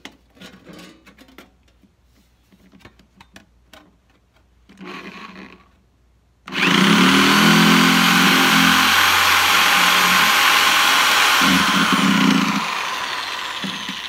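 Handheld electric sheet-metal shears cutting thin sheet metal: after a few light handling clicks, the motor starts suddenly about halfway through with a loud, steady high whine and the cutting head chattering through the sheet, then winds down and fades near the end.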